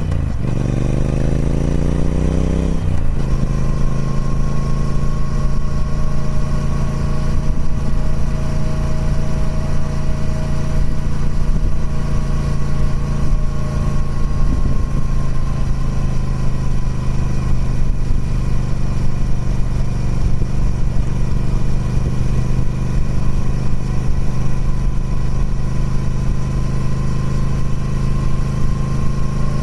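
Triumph Speed Twin 1200's 1200cc parallel-twin engine through its stock exhaust, rising in revs and shifting up about three seconds in, then holding steady revs.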